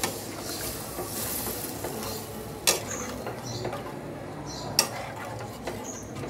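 Metal spatula stirring and scraping through a watery mustard egg curry in a metal pan, knocking sharply against the pan twice, over a steady hiss from the pan.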